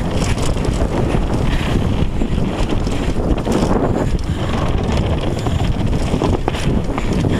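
Wind buffeting an action camera's microphone at downhill mountain-bike speed, over the rumble of knobby tyres on a dirt trail and the bike's steady rattle and knocks.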